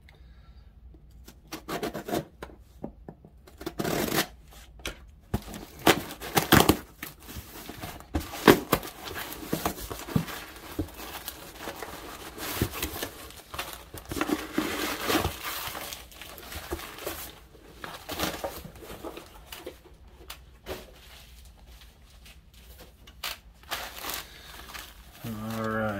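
Plastic bags of LEGO parts crinkling and rustling as they are handled, in irregular short rustles and crackles that come and go.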